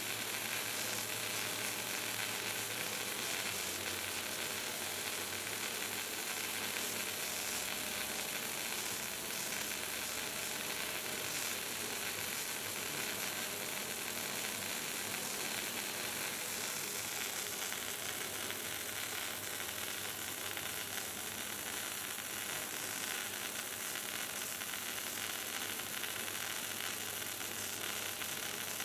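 Steel arc welding: the arc of a boom-mounted welding torch burns steadily along a butt weld on large-diameter steel tube, giving an even, continuous sizzle.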